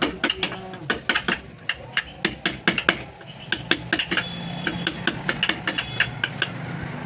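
Rapid, irregular hammer taps on wood, several strikes a second, over a low steady hum.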